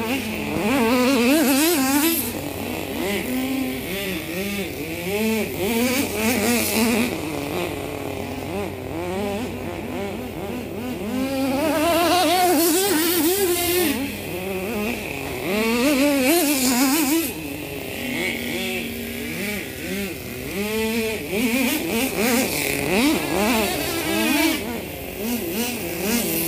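Nitro-powered RC truck's small glow engine revving up and down as it drives, a high buzzing pitch that rises and falls with bursts of throttle several times.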